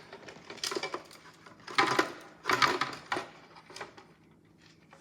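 Hard plastic parts of a toy washing machine clattering and clicking as it is handled and taken apart, in several bursts of rattling; the loudest come about two seconds in.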